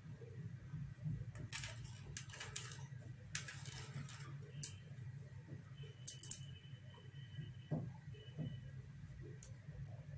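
Pet parrots moving about and nibbling: scattered light clicks and two short rustling bursts in the first four seconds, then a thin high whistle held for about a second past the six-second mark with a short repeat, over a low steady hum.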